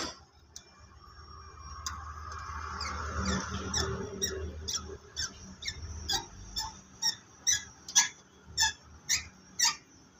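A few seconds of rubbing and scraping, then short sharp metal squeaks about two a second, one with each twist of a screwdriver loosening a screw on the tractor's turbocharger fittings as the turbo is removed.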